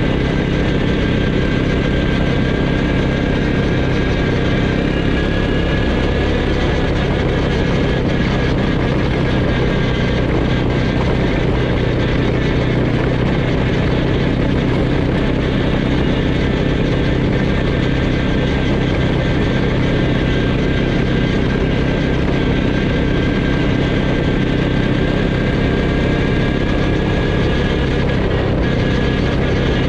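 ATV quad bike engine running at a steady cruising pace along a gravel track, with a steady rushing noise beneath it.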